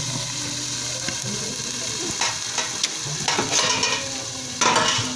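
Clams and small tomatoes frying in a wok with a steady sizzle while a metal lid is set over it, with a few short scrapes and knocks of the lid, the loudest near the end.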